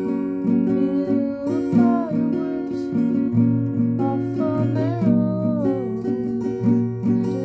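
Acoustic guitar played by hand, chords strummed and picked, changing every second or so.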